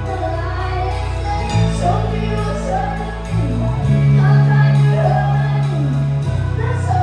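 Live band playing a pop song, with a lead voice singing the melody over sustained bass notes that shift pitch every couple of seconds.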